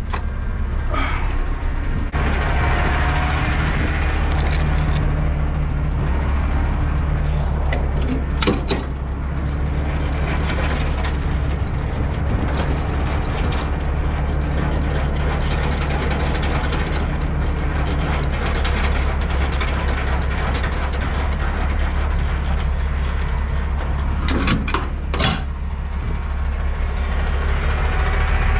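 Semi truck's diesel engine idling steadily while the trailer is unhooked, with a few sharp clanks and knocks and some ratcheting mechanical noise from the coupling work.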